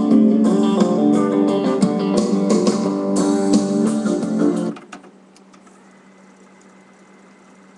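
Song with guitar played back on a Nakamichi CR-2A cassette deck, cutting off suddenly about two thirds of the way through. After that a faint steady hum remains, with a few faint clicks.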